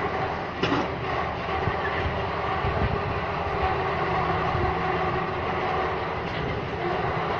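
Crane running as it carries a hanging steel concrete-pipe mould: a steady mechanical rumble and rattle, with one sharp knock under a second in.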